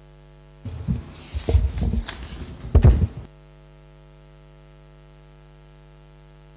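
Steady electrical mains hum from the sound system. From under a second in, for about two and a half seconds, a table microphone is handled, with knocks and rustling; the loudest knock comes near three seconds.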